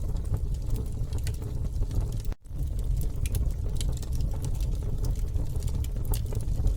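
Campfire burning, with irregular crackles and pops over a steady low rumble. The sound cuts out for an instant about two seconds in.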